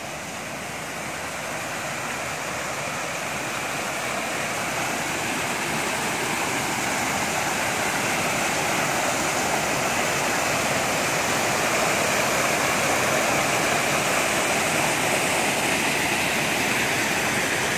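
Small waterfall cascading down a rocky bank, a steady rush of falling water that grows louder over the first several seconds and then holds steady.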